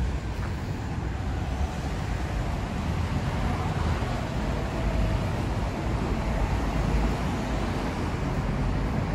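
Steady road traffic noise from cars on a multi-lane city street, a continuous low hum with no distinct events.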